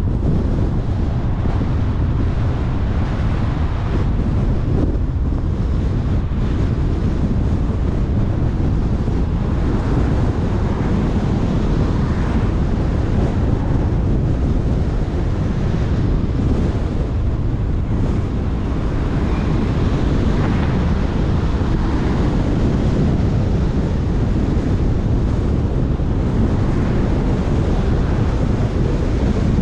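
Steady low road rumble of a car driving along, tyre and engine noise blended, with wind buffeting the microphone.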